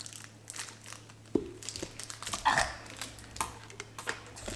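Candy wrappers crinkling and crackling in small hands as Reese's peanut butter cups are unwrapped, with a single knock about a second and a half in.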